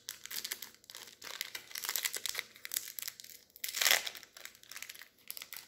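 Crinkling and crackling of a Magic: The Gathering booster pack's foil wrapper being handled, with a louder crinkle about four seconds in.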